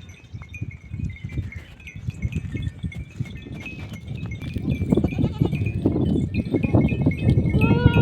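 A flock of sheep moving: a dense shuffle of hooves grows louder about halfway through, with small bells clinking throughout and one bleat near the end.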